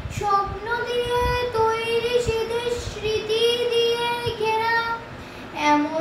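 A young girl singing solo in a single voice with no instruments, holding long sustained notes. There is a short break a little after five seconds in, then she comes in on a lower note.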